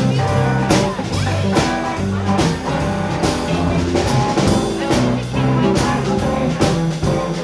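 Live blues band playing: keyboard, guitar, electric bass and drum kit, with a steady drum backbeat striking a little under once a second over sustained bass notes.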